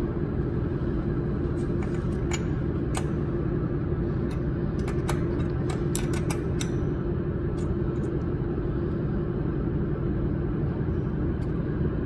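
Steady low machine hum with one held tone, and scattered small metallic clicks and ticks as a fibre-cable connector and a wrench are handled against the welding head's metal fittings.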